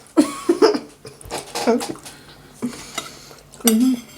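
Cutlery clicking against plates during a meal, mixed with short vocal sounds and half-spoken fragments; the loudest vocal sound comes near the end.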